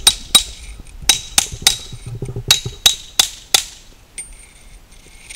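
Hammer striking a brick chisel held on a concrete retaining-wall block: about nine sharp metallic taps in quick groups of two or three, stopping a little before the end. This is scoring a groove into the block to cut it.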